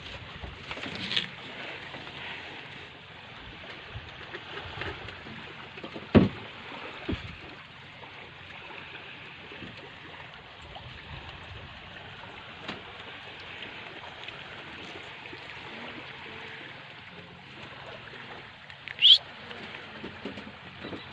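Steady hiss of wind and water at the shore. A sharp knock comes about six seconds in, with a lighter one just after, and a short high rising chirp comes near the end.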